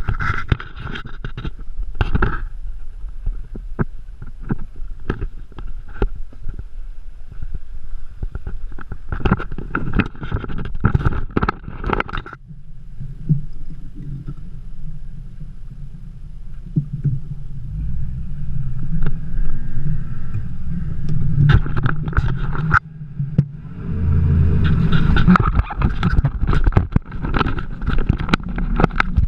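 Outboard-powered skiff under way on open water, its Mercury Racing 400R supercharged inline-six outboard running. For the first dozen seconds choppy wind and water noise with many sharp knocks covers it. Then the engine's steady low drone comes through and grows louder through the second half as the boat runs at speed.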